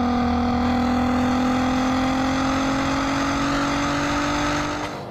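The naturally aspirated 3.2-litre VR6 V6 of a Mk5 Volkswagen Golf R32 accelerating hard, its exhaust note heard right at the twin tailpipes, with the pitch climbing slowly and steadily as the revs rise. The note cuts off near the end as the throttle comes off.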